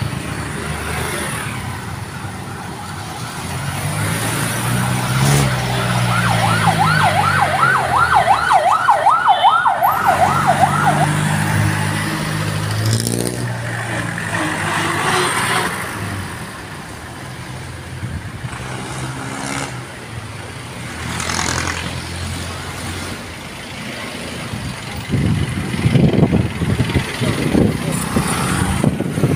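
Busy street traffic, with cars, motorcycles and a jeepney passing and engines rising in pitch as they pull away. A fast warbling siren goes up and down about three times a second, starting about six seconds in and lasting about five seconds. A louder vehicle passes close near the end.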